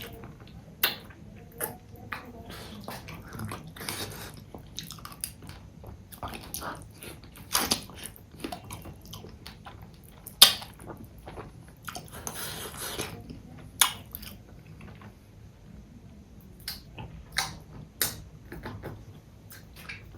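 Close-miked eating of fish curry with rice: wet chewing and smacking mouth sounds, broken by sharp clicking bites at irregular moments, the loudest about halfway through. About 12 seconds in there is a hissing, sucking sound lasting about a second.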